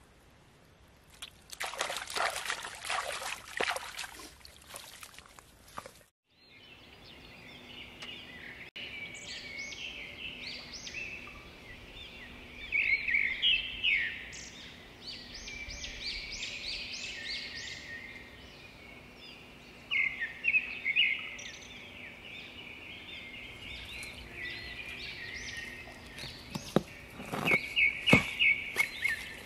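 Water splashing and trickling as hands work in a muddy pool for a few seconds, then, after a brief drop-out, birds chirping over and over. Near the end a few sharp knocks, as stones and clay are handled.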